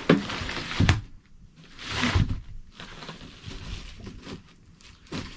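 Two sharp knocks close together, then a rustle and softer handling noises as camping gear and food are moved about.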